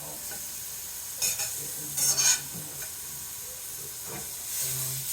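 Banana slices frying in butter in a pan, sizzling steadily, with two brief louder bursts about one and two seconds in.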